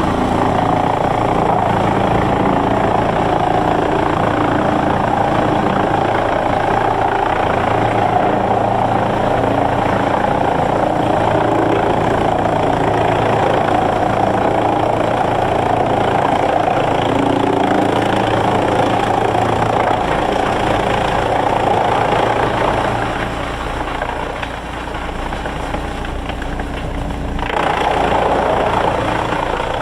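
Sawmill machinery running steadily and loudly. The sound deepens about two-thirds of the way through, eases for a few seconds, then changes abruptly near the end.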